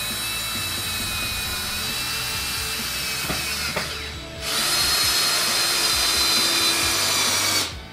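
Cordless drill driving long wood screws into treated pine corner braces, in two long steady runs. A short break comes about four seconds in, and the second run is louder.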